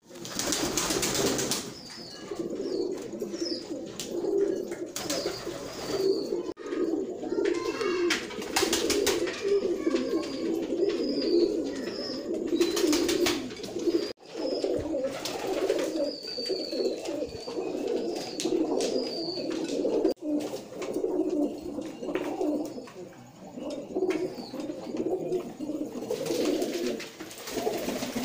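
Domestic pigeons cooing continuously, a low rolling coo repeating over and over. Short high chirps come and go above it, and a few brief bursts of noise cut across it.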